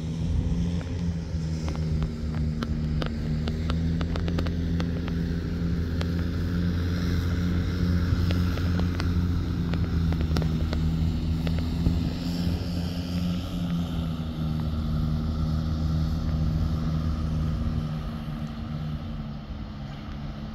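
Diesel engine of heavy construction machinery running steadily with a low drone, with a scatter of short knocks and clanks in the first half. The engine sound drops off somewhat near the end.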